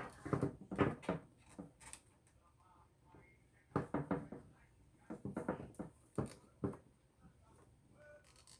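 Hands handling and fitting parts together: clusters of light knocks and clicks, near the start, around the middle and again a little later.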